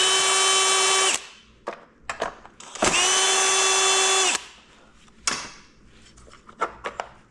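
Cordless drill-driver backing out the 10 mm bolts holding a motorcycle's under-tail panel: two steady whirring runs of about a second and a half each, the second starting about three seconds in. A few light clicks follow near the end.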